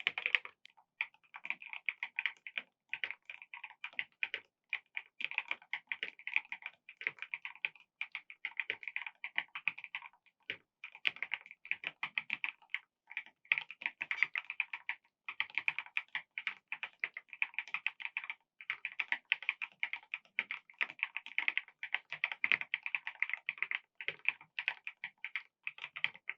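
Fast, continuous typing on a mechanical keyboard fitted with KiiBOOM × Cosydiaries Rainy Froggy Day keycaps: rapid keystroke clacks with a few brief pauses.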